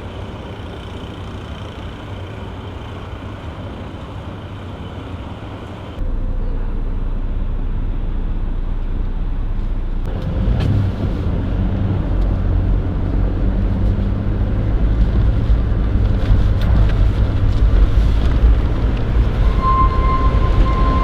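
A vehicle driving: a steady low engine and road rumble. It jumps louder suddenly about six seconds in, and again with a deeper rumble about ten seconds in.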